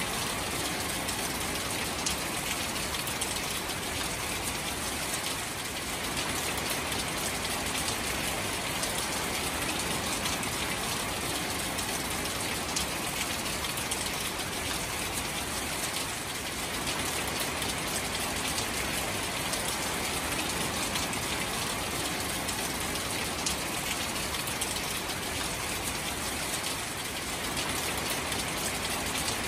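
Steady rain falling onto shallow standing water among marsh grass: an even hiss full of small drop ticks.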